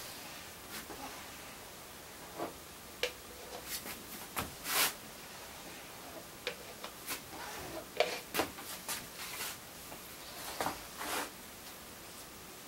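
Plastic squeegee scraping excess epoxy resin across wet fiberglass cloth on a surfboard and wiping it off on the rim of a cup: a dozen or so short, irregular scrapes and ticks.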